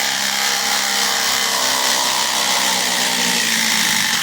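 Ridgid R87207 subcompact brushless 3/8" impact wrench hammering continuously in reverse, backing a 1/2" x 8" lag bolt out of wood.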